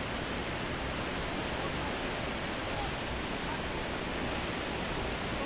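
Fast-flowing floodwater of a river in full flood, a steady, even rushing noise of muddy water surging past.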